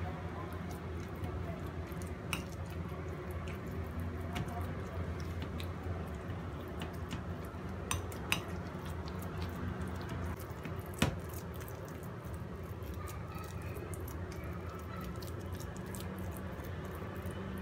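Metal spoon clinking and scraping against a ceramic bowl while mashing steamed sweet potato, with a few sharper clinks about eight and eleven seconds in. A steady low hum runs underneath.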